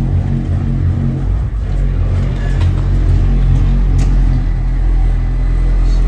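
An old bus's engine running steadily, with a deep, even rumble. There is a light click about four seconds in, as a dashboard control is worked.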